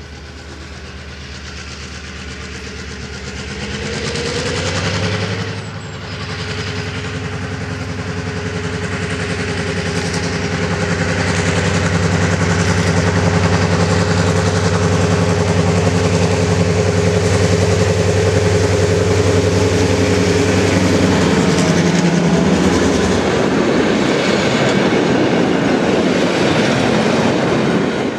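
DSB MY 1101, a NOHAB diesel-electric locomotive with an EMD 16-567 two-stroke V16 engine, approaching and passing under power. Its steady engine drone grows louder as it nears. In the last few seconds the clatter of the train's wheels over the track takes over.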